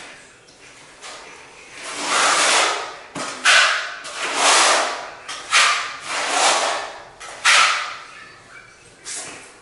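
A hand tool scraping across a bare concrete subfloor in about seven rasping strokes, roughly one a second, starting about two seconds in.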